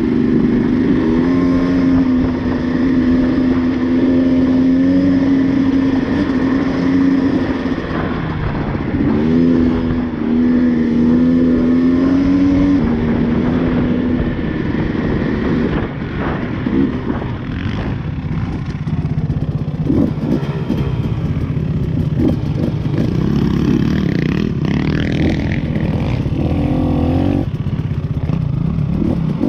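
Dirt bike engine running under way, holding steady revs with a few steps in pitch as gears change over the first half. About halfway through it drops to lower, rougher revs with some rattle and a few short rising revs as the bike slows.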